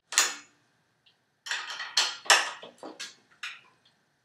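Brass baritone horn being handled: a single clack, then a quick run of sharp metallic clinks and clacks, as its tuning slides are worked to empty the spit before playing.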